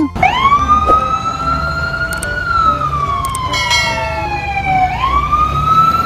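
Fire engine siren wailing: its pitch climbs, slowly falls, then climbs again near the end, over a low truck rumble. A short horn blast sounds about midway through.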